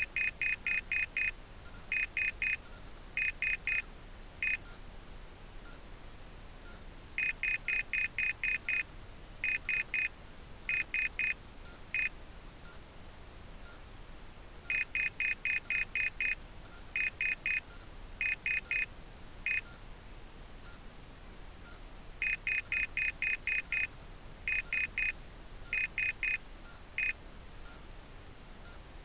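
Rocket altimeter beeping out its peak-altitude reading after landing: a high electronic beep in groups of seven, three, three and one, spelling out 7,331 feet. The readout repeats about every seven and a half seconds, about four times.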